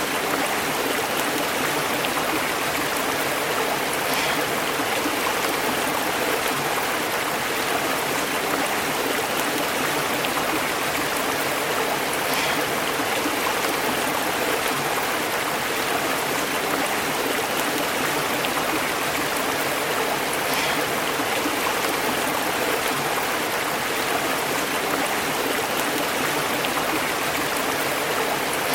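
A small stream burbling and bubbling over rocks in a steady rush of running water, with now and then a brief splash.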